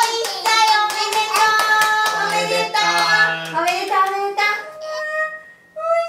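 Voices singing a tune with hands clapping along, the clapping dense through the first three seconds or so and then dropping away as the tune thins out.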